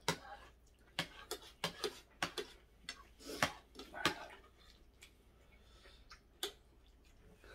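Eating at the table: a metal spoon and fork clicking and scraping against ceramic plates, about ten short clicks spaced unevenly, most of them in the first four seconds and one more later, with chewing in between.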